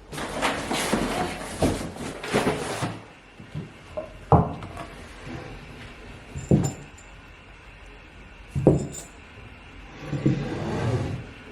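Packaging rustling as a headboard is unboxed, then three sharp knocks a couple of seconds apart as its wooden parts are handled and set down, and more rustling near the end.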